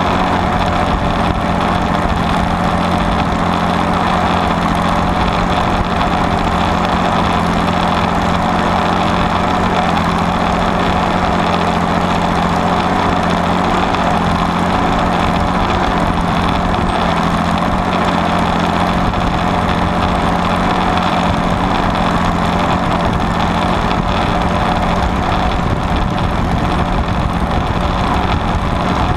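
Allis-Chalmers WD45 diesel tractor's six-cylinder diesel engine running steadily under load, pulling a two-bottom rollover plow through the soil.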